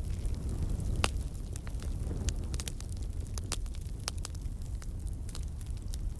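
Campfire crackling: a steady low rumble of burning wood with frequent sharp pops and snaps, the loudest pop about a second in.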